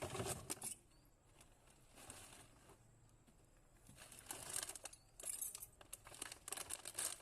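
Irregular rustling and crackling handling noise in short spells. It is loudest just at the start and again over the last three seconds.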